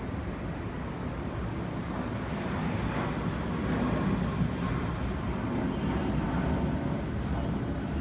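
Steady rumble of a distant jet airliner's engines, swelling a little in the middle.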